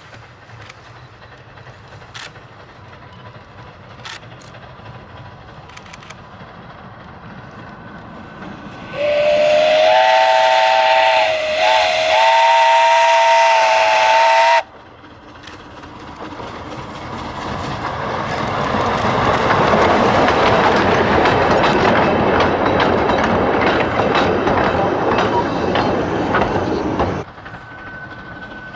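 Narrow-gauge steam locomotive sounding its whistle for about five seconds: a chord of several tones with hiss, dipping briefly in the middle. The train's running noise and steam hiss then build as it approaches and passes, with many small clicks, and stop abruptly near the end.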